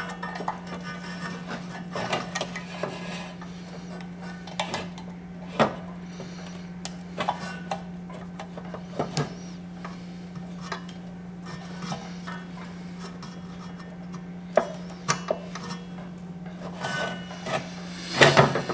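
Scattered light clicks, taps and scrapes of hands and a small metal tool working at a stainless steel bracket plate, over a steady low hum.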